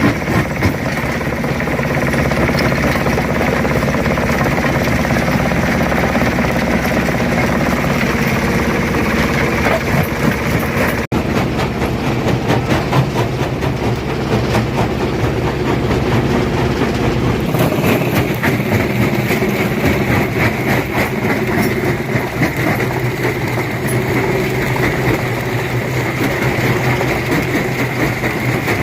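Stone crusher running under load: a steady heavy machine drone mixed with dense crunching and knocking of rock being broken. The sound breaks off abruptly about eleven seconds in and changes character again a few seconds later.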